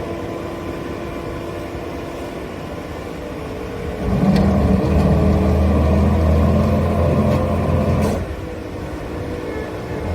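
An engine running steadily, growing louder about four seconds in and dropping back about four seconds later.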